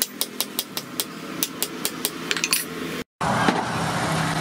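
A hammer taps lightly and quickly on the steel collar that joins a forged rebar spear head to its bamboo handle, about four or five sharp metallic taps a second, coming closer together near the end. About three seconds in the taps cut off abruptly, and a steady background noise with a low hum follows.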